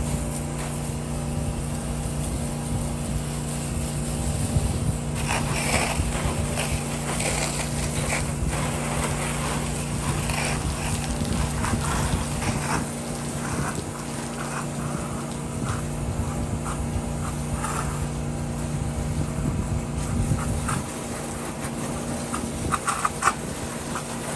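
A pressure washer's engine running steadily, with short higher-pitched sounds coming and going over it, mostly in the middle and near the end.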